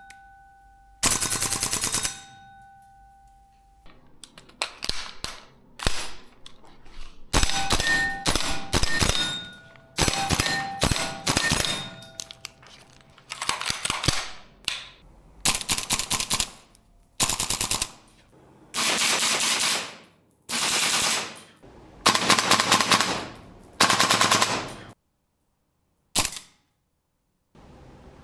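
PTS Mega Arms MKM AR15 gas blowback airsoft rifle firing, mostly short full-auto bursts of rapid shots with brief pauses between them, plus a few single shots. Steel targets ring after some hits.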